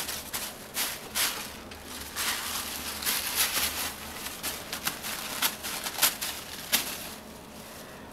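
A cat shredding paper: irregular rustling and crinkling with sharp rips, busiest in the middle and dying down near the end.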